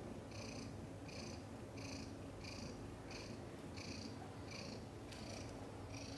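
A heavily pregnant cat in labor purring steadily, a low continuous rumble. A soft, regular high-pitched pulse repeats about every two-thirds of a second over it.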